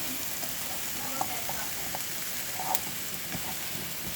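Food sizzling and popping as it cooks: a steady frying hiss with a few small pops.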